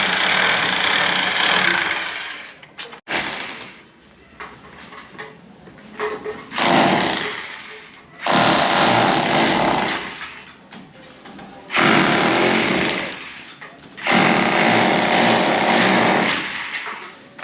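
Electric hammer drill running in repeated bursts of a couple of seconds each, about five times, stopping and starting between them.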